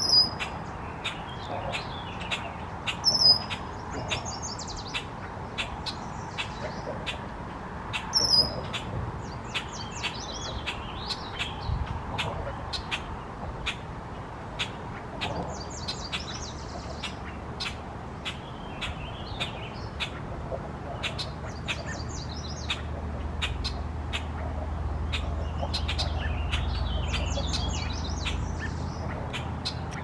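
Wild birds singing and calling: short sharp chips about twice a second, with song phrases scattered through. There are three loud falling whistled notes near the start, about three seconds in and about eight seconds in. A low steady rumble builds up in the second half.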